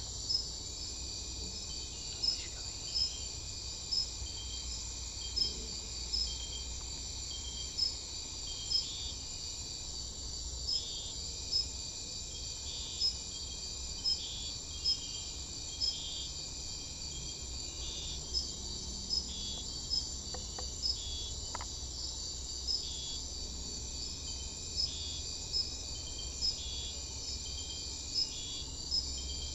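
Chorus of crickets and other insects: a steady high trill of several overlapping callers, with sharp chirps about once a second and a lower drawn-out buzz that breaks off and starts again a few times.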